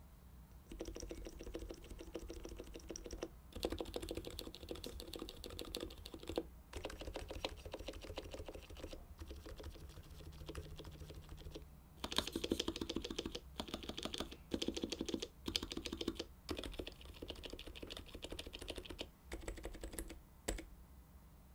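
Stabilized keys of a Topre-style keyboard with Deskey sliders, rubber domes and lubed Leopold 980C stabilizer wires, each pressed rapidly over and over. The presses come in about a dozen quick runs of clicks, each lasting up to a few seconds, with short pauses between.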